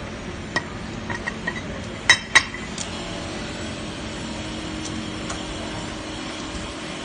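Several sharp metallic clinks with a short ring, the loudest two close together about two seconds in, over a steady low hum.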